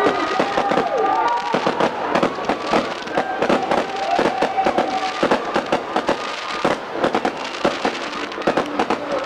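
Fireworks going off in a rapid, continuous barrage of bangs and crackles, several reports a second. A few long held tones sound over the bangs, each falling away at its end.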